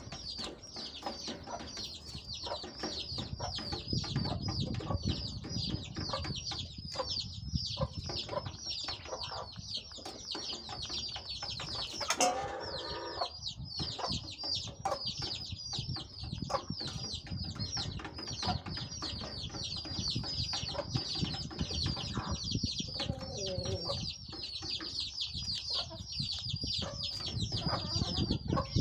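Young chickens peeping: a steady stream of quick, high chirps, several a second, over lower clucks. One louder, sharper squawk about twelve seconds in.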